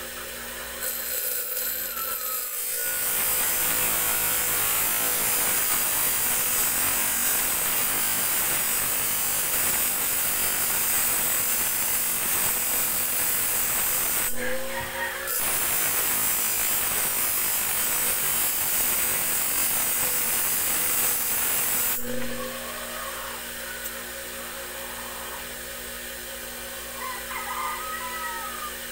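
A small steel tari blade held by hand against a spinning motor-driven grinding wheel: a loud, steady hissing grind that starts a few seconds in, breaks off for about a second near the middle, and stops some seven seconds before the end. The wheel's motor hums steadily throughout.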